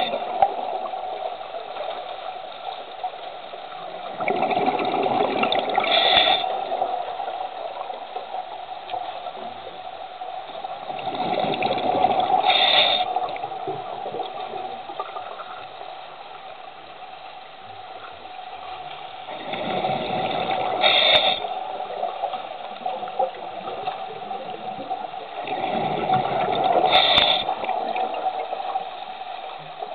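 Scuba diver breathing through a regulator underwater: four slow breaths about every seven seconds, each a swell of rushing bubbles ending in a brief higher hiss, over a steady hum.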